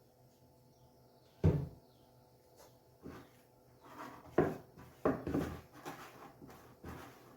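A sharp thump about a second and a half in, followed by a string of softer knocks and bumps, as things are handled in a kitchen.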